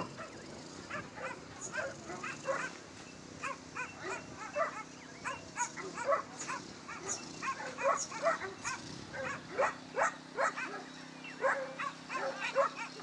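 Excited dogs yelping and yipping over and over, several short high cries a second, over a steady low hum that gets stronger in the last few seconds.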